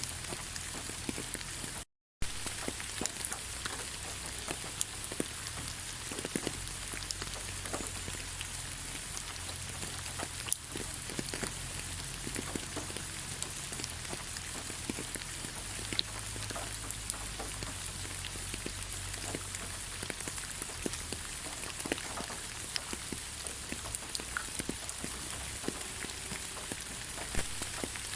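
Light rain falling steadily: an even hiss of rain with many separate drops ticking through it. The sound cuts out for a split second about two seconds in.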